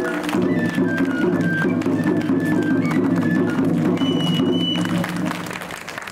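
Kabuki stage music: low held instrumental tones under a high, stepping melody. It stops about five seconds in, and applause begins.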